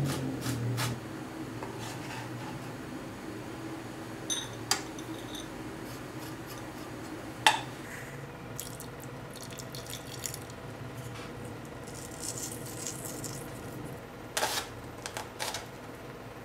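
Sparse kitchen prep sounds: a chef's knife tapping on a plastic cutting board, a sharp clink from a ceramic bowl about halfway through, and a quick run of knife chops on the board near the end as an onion is diced.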